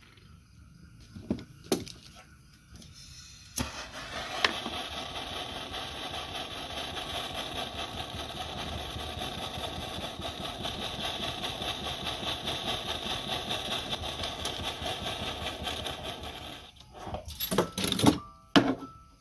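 Jeweller's blowtorch running steadily with an even hiss, its flame heating a metal strip; it starts about three and a half seconds in and cuts off about three seconds before the end. A few sharp metal clicks and knocks come before and after it.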